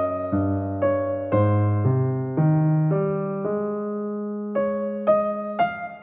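Background keyboard music: a soft electric piano plays slow single notes about twice a second, holding one longer note near the middle.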